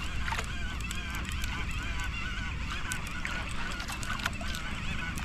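Shimano Torium conventional jigging reel whirring under load while a hooked fish is fought, a warbling whine that wavers in pitch, with scattered clicks. A steady low rumble of wind and sea runs underneath.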